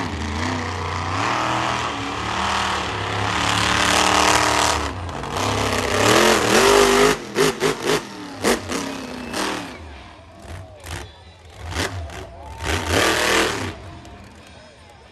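Monster truck engine revving hard, its pitch rising and falling. From about seven seconds in come a run of short sharp throttle blips, and the sound then drops off with a few last bursts of throttle.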